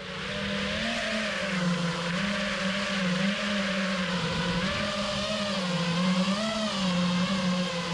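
A motor running steadily, its pitch wavering gently up and down, with a hiss of rushing air or noise over it.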